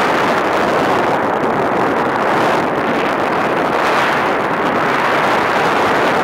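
Airflow rushing over the onboard camera of a Multiplex EasyStar RC model plane in flight: a loud, steady rush that swells and eases every second or so.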